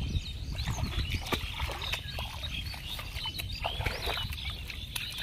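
Many short squeaks and sharp clicks from gulsha tengra catfish caught in a monofilament gill net, with the fish flapping in the mesh, over a steady low rumble.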